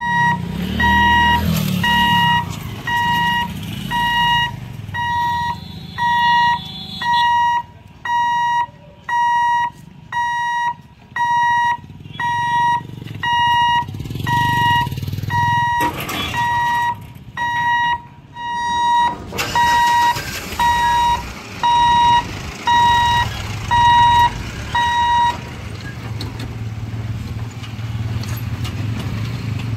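Level-crossing warning beeper sounding a steady beep about once a second while the boom barriers lift, stopping about 25 seconds in. Motorcycle and truck engines run underneath and carry on after the beeping stops as traffic crosses the tracks.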